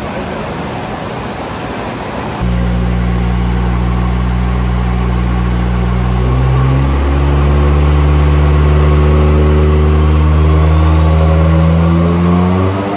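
Turbocharged Toyota 3S-GE BEAMS inline-four in an AE86 making a full-throttle dyno pull. The engine comes in sharply about two seconds in, and its pitch climbs steadily as the revs build, with a faint rising whistle joining near the end. The pitch drops abruptly right at the end. The pull is run with a MAC valve raising boost above the 8-pound wastegate spring.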